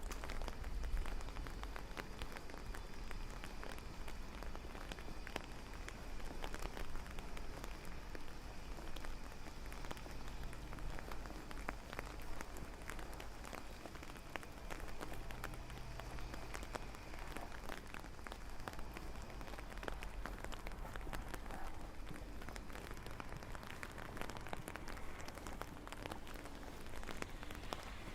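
Steady rain falling, with many individual drops ticking and pattering on hard surfaces.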